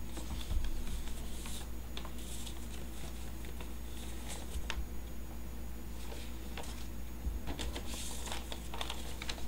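Sheets of paper rustling and crinkling as they are handled and shuffled, in short irregular rustles and light clicks, over a steady low hum.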